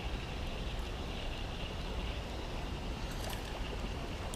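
Steady rush of running creek water with a low wind rumble on the microphone, and a few faint clicks about three seconds in.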